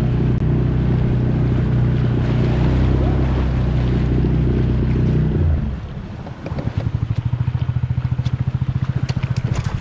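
Dinghy outboard motor running steadily under power, then throttled back about five and a half seconds in to a rapid, even putter at low speed.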